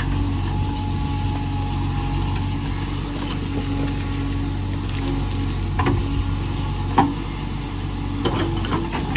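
JCB 3DX backhoe loader's diesel engine running steadily, with a few sharp knocks from about six seconds in, the loudest one at about seven seconds.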